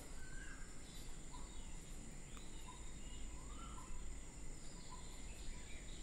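Small birds chirping in the background: short rising calls about once a second over a steady low outdoor hum.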